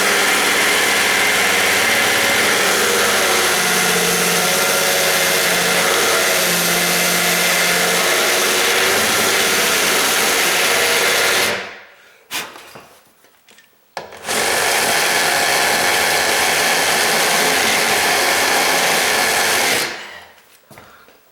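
Electric drill running with a rasp bit, grinding away the edge of a steel door strike plate to widen the latch opening. It runs steadily, stops for about two seconds near the middle, then runs again and stops shortly before the end.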